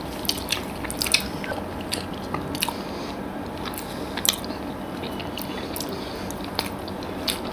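Close-miked chewing of soft, syrup-soaked rasgulla and pantua sweets: irregular short mouth clicks and smacks, roughly one a second, over a steady low hiss.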